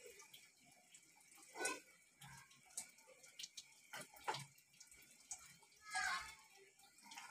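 Quiet, wet plops and small splashes as pieces of steamed gram-flour (besan) cake are dropped one by one into a thin gravy in a wok. About five short, separate sounds, the loudest near two seconds in and near six seconds in.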